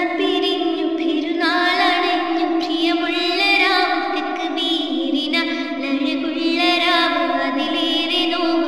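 A girl singing a slow melody with long held, slightly wavering notes.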